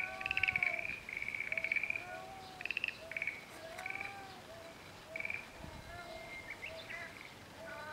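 A house cat meowing in short, repeated 'nyau nyau' calls, inviting a neighbour cat to come and play. High, rattling calls sound over it several times in the first five seconds and are the loudest thing heard.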